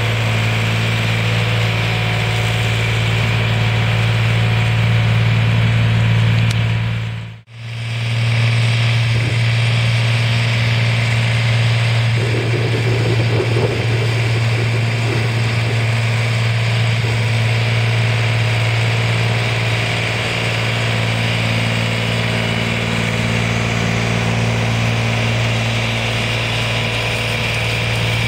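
Ursus C-360 3P tractor's four-cylinder diesel engine running steadily at working speed while it drives a Z-178 drum mower through grass. The sound cuts out for a moment a little over seven seconds in.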